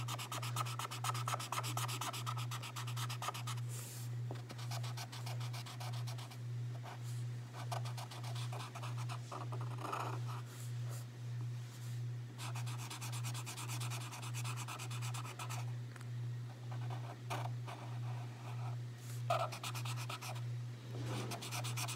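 Bic felt-tip marker scratching quickly back and forth on paper, colouring in, with a couple of brief pauses.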